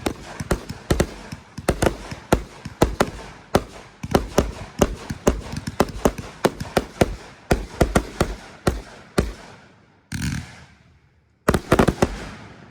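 Fireworks going off in rapid volleys of sharp bangs, several a second, thinning out after about nine seconds; a short burst of noise follows, then a quick cluster of bangs near the end.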